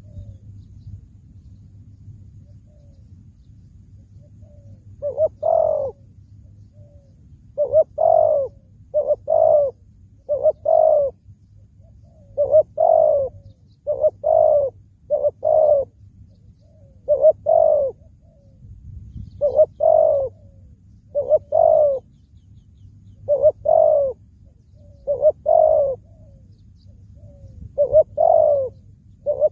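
Spotted dove cooing: after about five seconds of quiet, a long series of short, low coos, each about half a second, repeating roughly once a second, some in quick pairs.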